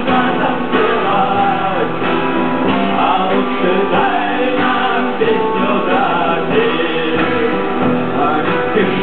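Rock band playing a song live, with singing over acoustic and electric guitars and drums.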